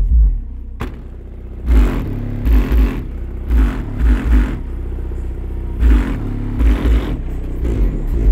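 Bass-heavy music played loud through a 15-inch Massive Audio Hippo XL152R subwoofer in a car, heard from outside: deep bass notes hit in quick pulses, with a noisy buzz over the loudest hits.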